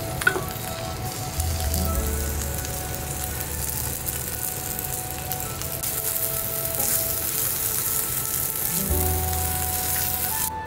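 Ham, red onion and sweetcorn sizzling steadily in a hot cast-iron skillet, with a sharp tap just after the start as more corn is tipped in from a metal cup. Soft background music plays underneath.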